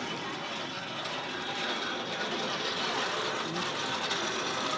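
Steady mechanical clatter and hum of a tug's diesel engine running as the tug pushes a barge out of the lock chamber.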